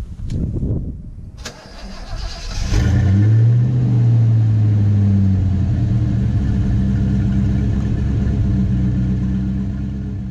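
The 5.0 V8 in a 1985 Ford Mustang LX is cranked by the starter, heard from behind at the tailpipes. It catches about three seconds in with a brief rev, then settles into a steady idle.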